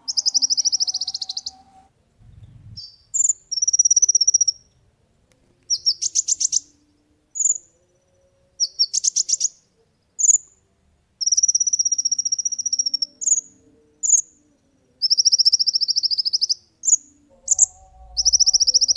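Kolibri ninja sunbird singing: rapid high-pitched trills lasting about a second, alternating with short sharp chips and quick rattling runs, repeated with short pauses between.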